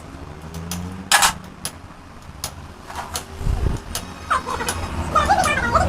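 Scattered sharp clicks and knocks over a low steady hum, the loudest knock about a second in; a wavering pitched sound comes in near the end.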